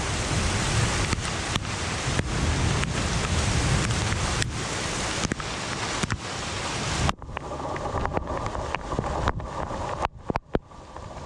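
Heavy downpour of a sudden summer thunderstorm: rain pouring steadily as a dense hiss, with sharp ticks of drops striking close by. About seven seconds in the hiss cuts away abruptly, leaving a fainter, duller sound.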